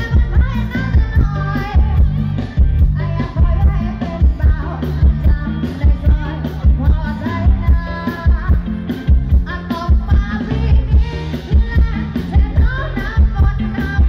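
Live Thai stage-band music through a large outdoor PA: a woman singing over a steady beat with heavy bass.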